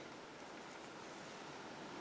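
Faint, steady background hiss of room tone, with no distinct sound.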